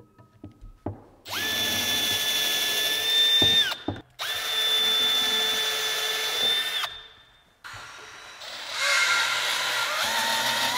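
Cordless drill-driver driving screws into a timber staircase, running at a steady whine in three runs of two to three seconds each and stopping sharply between them.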